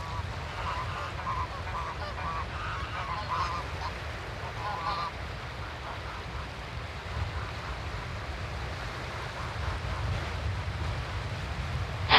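Birds calling: a run of short calls through the first five seconds or so, over a steady low rumble. A sharp click comes at the very end.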